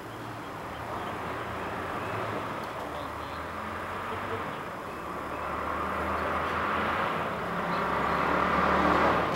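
A motor vehicle's engine approaching, running steadily and growing louder toward the end.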